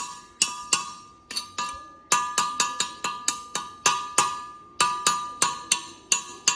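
A hammer striking steel in quick runs of blows, about three to four a second, each blow ringing with a clear metallic tone. There are short pauses between runs.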